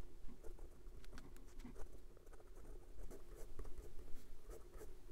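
Hero 565 fountain pen's medium steel hooded nib writing on Clairefontaine 90 gsm paper: a run of short, irregular scratches as letters are formed. It is a smooth nib with just a hint of feedback. A faint steady hum sits underneath.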